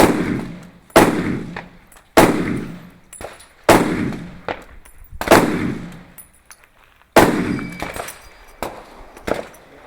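Six gunshots fired one at a time, spaced about one to two seconds apart, each followed by a trailing echo.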